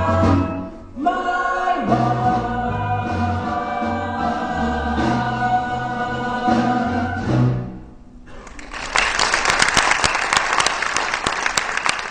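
Ensemble of singers with backing music, ending on a long held chord about seven and a half seconds in. About a second later an audience starts clapping, and the applause runs on to the end.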